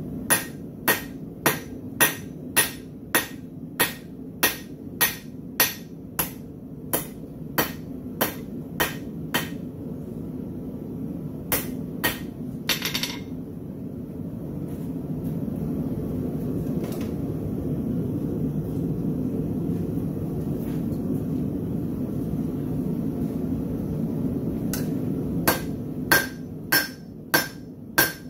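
Hand hammer striking a red-hot steel bar on a steel anvil to draw out a taper, about two blows a second, each with a bright ring. The blows stop for about a dozen seconds, leaving only a steady low rushing noise, then start again near the end.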